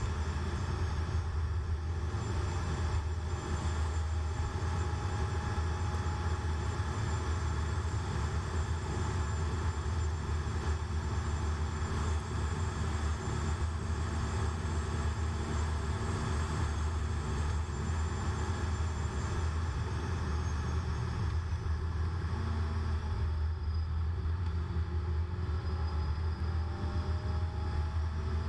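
Road noise inside a car cabin at highway speed: a steady low rumble of tyres and engine. Near the end a faint tone in the hum dips and then rises again.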